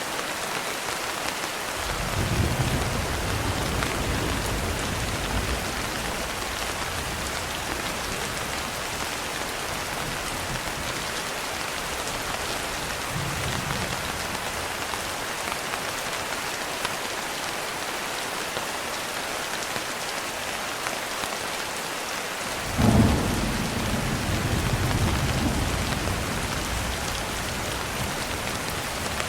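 Steady rain falling, with thunder: a low rumble about two seconds in that lasts a few seconds, and a louder clap about three-quarters through that rolls on and fades.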